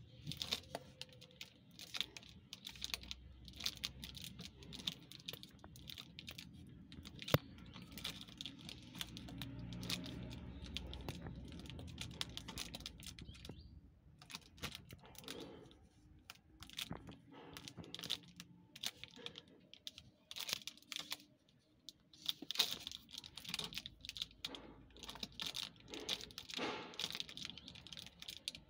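A cat playing with a plastic packing strap on a cardboard box, making irregular crackling clicks and rustles. A low rumble runs underneath during the first half.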